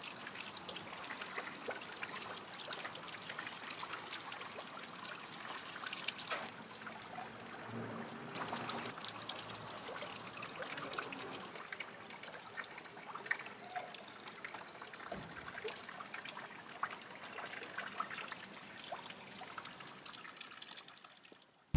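Water from a stone fountain trickling and splashing into its basin, a steady spatter of small drops. It fades out near the end.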